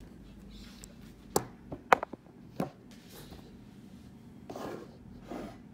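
A handful of sharp knocks and clicks in quick succession, then two soft rustles near the end.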